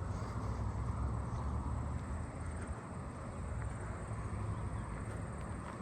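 Outdoor ambience: a faint, steady, high-pitched insect trill over a low rumble that eases a little about halfway through.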